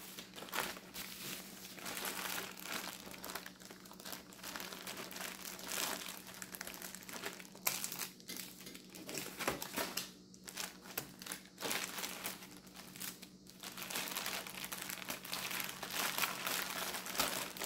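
Plastic packaging crinkling and crumpling in the hands: bubble wrap and a plastic mailer bag being pulled apart and scrunched, with irregular rustles and crackles throughout.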